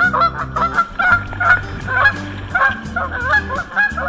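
Geese honking repeatedly, many short calls in quick succession, over background music with a steady bass line and a light regular beat.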